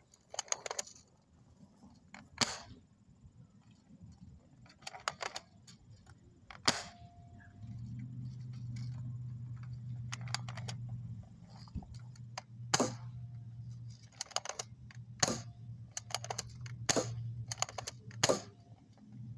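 AR-15-style airsoft rifle firing BBs, a series of sharp clicks at irregular gaps of one to three seconds. A low steady hum starts about eight seconds in.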